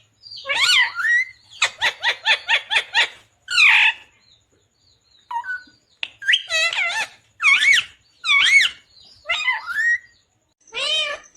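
Pet ringneck parakeet (rose-ringed parakeet) calling: loud, wavering calls, including a fast run of short notes about two seconds in. After a pause of about two seconds in the middle, it gives single calls roughly once a second.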